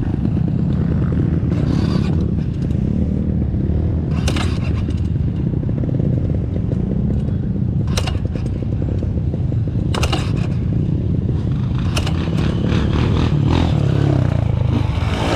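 Trail motorcycle engine running steadily at low speed, with a few sharp clicks or knocks over it.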